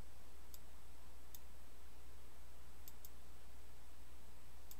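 Computer mouse clicking: single sharp clicks about half a second and a second and a half in, then pairs of quick clicks about three seconds in and near the end. A steady low hum runs underneath.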